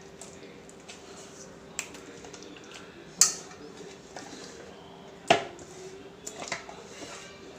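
Kitchen dishware handled while marinade is worked onto chicken: a few sharp clinks and knocks of a dish or bowl, the two loudest about three and five seconds in, the second ringing briefly. A faint steady hum runs underneath.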